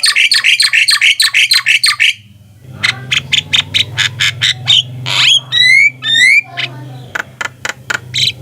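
Javan myna (jalak kebo) calling. It gives a fast run of harsh repeated notes, about five a second, for two seconds. After a short break come varied chattering notes and a few rising whistles, over a steady low hum.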